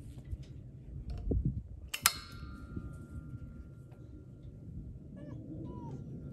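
Gas hose's quick-connect plug pushed onto the outlet of an LP gas cylinder regulator, with a low handling thump and then one sharp metallic click with a brief ring about two seconds in as the coupler latches.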